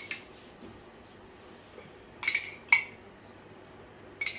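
Cutlery clinking against a dish: two ringing clinks a little past two seconds in and another near the end.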